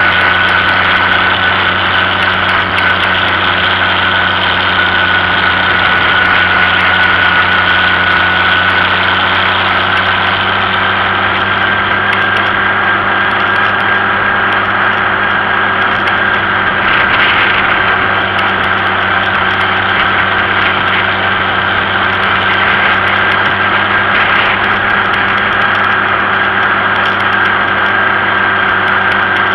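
Farm tractor engine running steadily as the tractor drives along a road, with a high whine that creeps slightly up in pitch.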